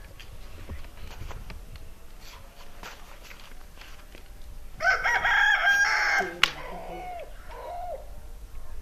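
A rooster crowing once, about five seconds in, a loud call lasting about a second and a half, followed by a few short clucking calls.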